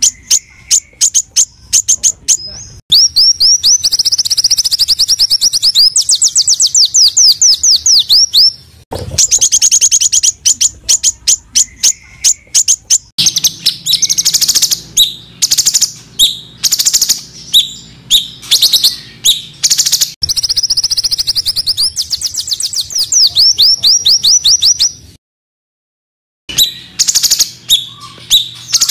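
Recorded small-songbird song used as a training track: fast, high, harsh repeated notes and rapid sweeping trills, the same phrases coming round again. It breaks off into silence for about a second near the end, then starts again.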